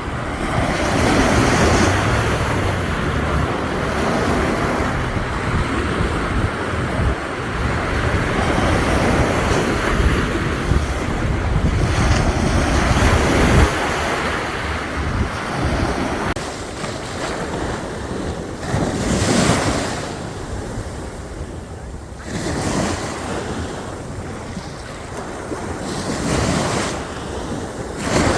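Ocean waves surging and washing in, with wind rumbling on the microphone for about the first half. In the second half, separate waves rise and fall every few seconds.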